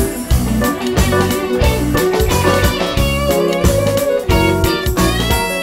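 Electronic keyboard playing a song's instrumental introduction: a melody over a steady bass and rhythm accompaniment, about two beats a second.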